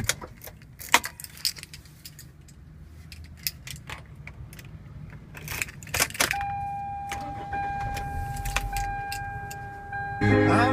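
Sharp clicks and a jingle of keys inside a 2001 Toyota Corolla between songs on its radio, over a low hum. About six seconds in, a steady electronic tone starts and holds for about four seconds.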